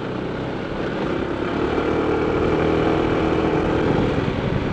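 Honda ADV 160 scooter ride: steady wind and road rush with an engine drone that swells about a second and a half in and fades near the end.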